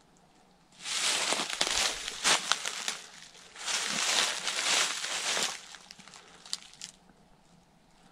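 Dry leaf litter and twigs rustling and crunching as a person moves through them, in two spells of about two seconds each.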